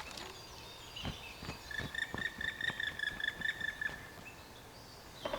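A bird's high, pulsed call held for about two and a half seconds, starting about a second and a half in, over a scatter of irregular sharp knocks on wood.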